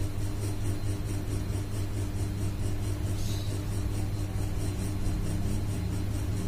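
Steady low hum over an even background noise: room tone.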